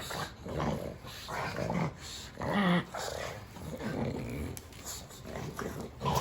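A small dog vocalizing in a string of short, irregular sounds, some with a wavering pitch.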